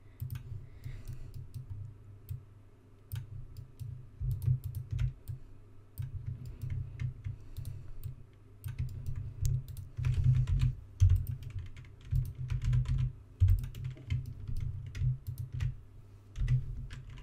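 Computer keyboard keys and mouse buttons clicking irregularly while working in 3D modelling software, with dull low knocks picked up along with the clicks.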